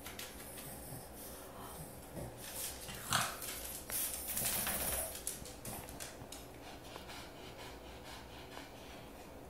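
A Chihuahua's breathing noises and the sounds of her moving on a wooden floor, with a sharp short sound about three seconds in and a longer hiss around four to five seconds in.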